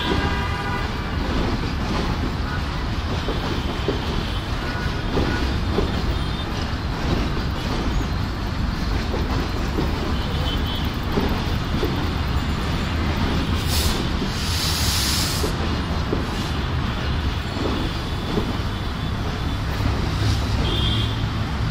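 Passenger train coaches rolling slowly through the station yard, the wheels rumbling and clacking irregularly over the points and rail joints. The end of a horn fades out at the start, and a short hiss comes a little past the middle.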